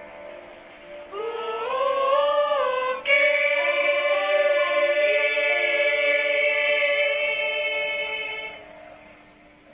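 Mixed school choir singing an Indonesian ethnic-style choral piece: a rising, swooping phrase about a second in, a sharp click near three seconds, then a long held chord that fades away near the end.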